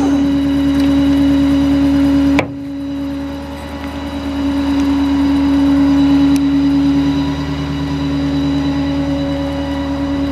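Ford F-550 utility truck idling, a steady hum with a strong held tone. A single sharp metal clunk comes about two and a half seconds in, and the sound is briefly quieter after it.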